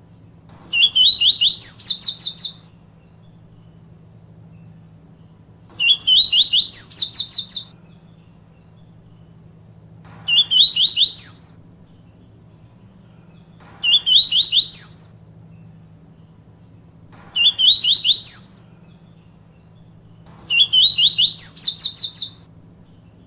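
Papa-capim seedeater singing its 'tui tui viviti' song: six short phrases, each a quick run of rising whistled notes that climb higher toward the end, repeated every few seconds. A faint steady low hum lies underneath.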